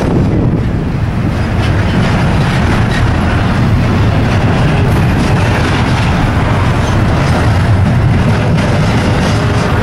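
CSX intermodal freight train rolling past close by, a steady heavy rumble mixed with wind buffeting the microphone.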